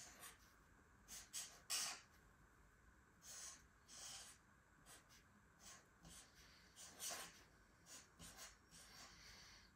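Marker pen writing on paper: faint short scratchy strokes, irregular, a few each second, the loudest a little under two seconds in.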